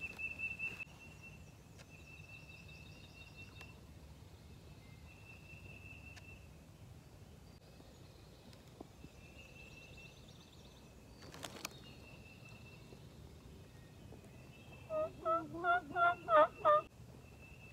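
Wild turkey gobbler gobbling once near the end: a rapid rattling run of about seven notes, lasting under two seconds.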